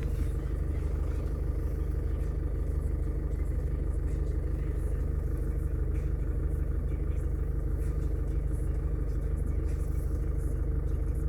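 A car engine idling: a steady low hum that holds even throughout.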